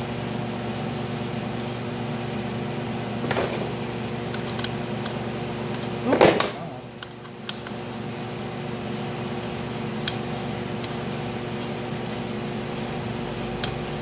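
Steady mechanical hum of a running machine in a workshop, with a short knock about three seconds in and a louder clatter about six seconds in as a bushed bicycle axle and hex key are handled in the frame, then a few faint ticks.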